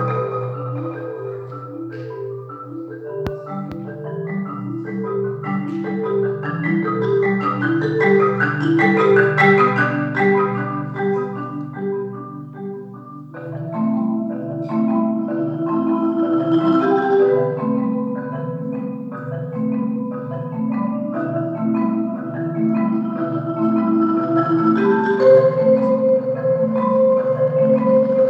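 Mallet percussion music, in the sound of a marimba: a repeating low figure of struck notes runs under a melody of longer held notes higher up. About halfway through, the low figure shifts to a new, fuller pattern.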